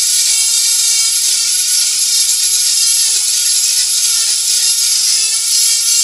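Dremel 4000 rotary tool running a burr against dry, weathered birch driftwood, grinding off the gray outer layer. It gives a steady high whine over a dense grinding hiss.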